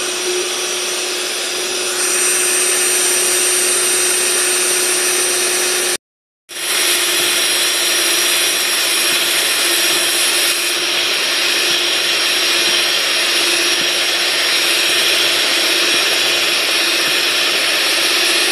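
Electric mixer running steadily with a constant motor whine, beating instant coffee, sugar and hot water into a thick cream. The sound breaks off into silence for a moment about six seconds in, then the mixer runs on.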